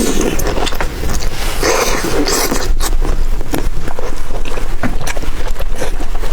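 Eating sounds: food being bitten and chewed, with many short clicks and smacks and a brief rush of hiss about two seconds in.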